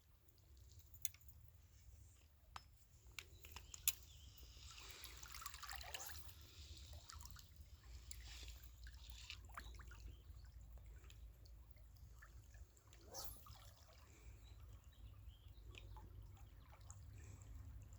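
Faint water trickling and splashing, with a few sharp clicks in the first four seconds and a brief louder swell of water noise about five seconds in.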